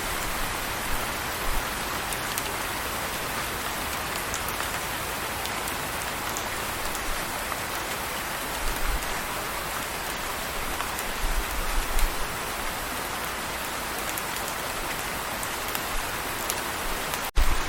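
Steady rain falling: a dense, even hiss with scattered drop ticks. The sound cuts out for an instant near the end.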